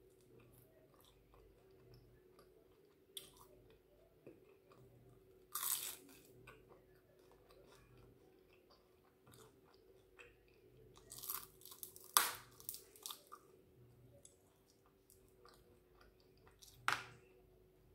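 Close-up chewing and biting on a chicken wing: soft wet mouth clicks, with a few louder crunchy bites about six seconds in, around twelve seconds in and near the end.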